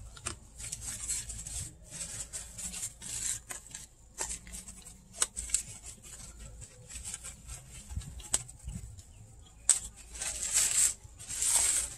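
Thin plastic trash bag rustling and crinkling in irregular bursts as it is stretched and wrapped around a brake caliper, with a few sharp clicks, loudest near the end.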